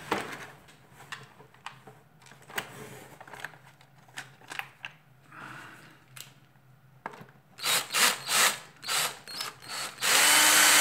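Small electric screwdriver driving a screw into a plastic vacuum-cleaner housing, running in several short bursts and then one longer steady run near the end. Before that, light clicks and knocks of plastic parts being handled.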